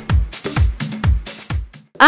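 Electronic dance-style music with a steady kick drum about twice a second and ticking hi-hats, cutting off abruptly near the end.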